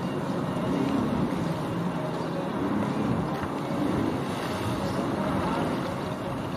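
Sea-Doo jet ski engines running steadily as one jet ski pulls away from the dock, with water churning from its jet.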